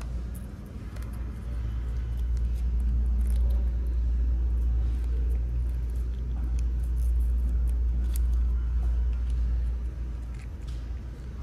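Small plastic ketchup packet crinkling and crackling as it is torn open and squeezed out, over a steady low rumble.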